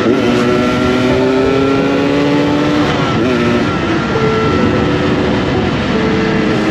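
Yamaha RX-King two-stroke motorcycle engine running under way, tuned for a throaty 'ngorok' growl. Its pitch climbs slowly, dips briefly about three seconds in, then settles.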